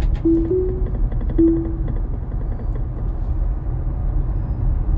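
Tesla Model Y dashboard chimes, Autopilot signal tones: a two-note rising chime near the start, then a single lower note about a second later. Underneath is steady road and tyre rumble heard inside the car's cabin.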